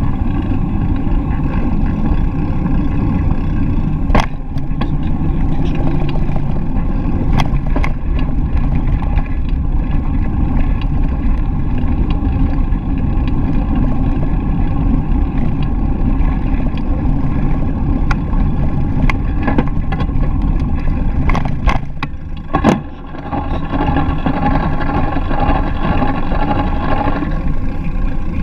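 Bicycle ride heard through an action-camera microphone: a steady low rumble of wind on the microphone and tyres rolling on a paved path, with a few sharp knocks from bumps. The rumble briefly drops about two thirds of the way through.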